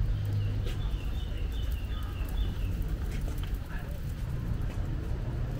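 Street ambience: a steady low rumble of city traffic, a bird chirping a quick run of high notes in the first half, and scattered footstep clicks.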